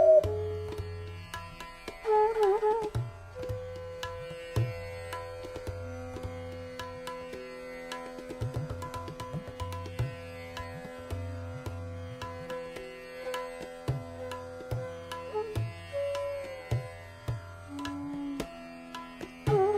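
Hindustani classical instrumental music in raga Bhopali: a bansuri flute holds long, steady notes over a tabla beat.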